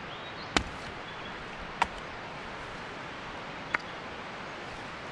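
Hatchet chopping a small log into kindling: three sharp wooden knocks, about half a second in, near two seconds and near four seconds.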